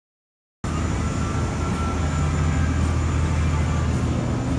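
After a moment of dead silence, a boat's engines start in with a steady low drone and rushing noise, heard from inside the cabin while under way.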